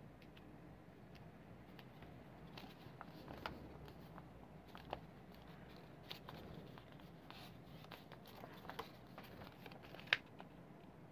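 A sheet of A4 paper being folded and creased by hand: faint rustling and crinkling with scattered small crackles, the sharpest one about ten seconds in.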